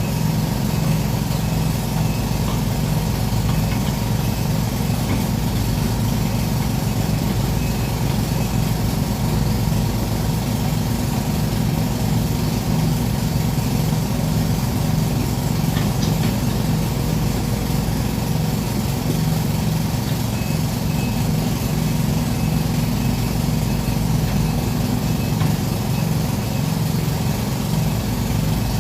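Excavator's diesel engine running steadily at a constant speed, with a low, even throb.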